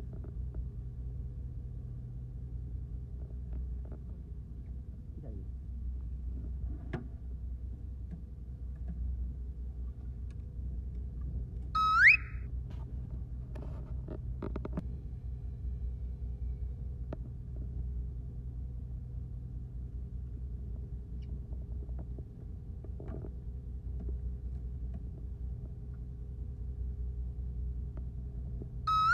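Fishing boat's engine idling, a steady low rumble. Twice, about twelve seconds in and again at the very end, a short electronic tone sweeps upward and is the loudest sound.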